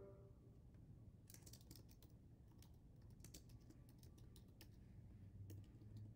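Faint typing on a computer keyboard: a quick run of keystrokes starting about a second in, thinning to a few scattered keys near the end.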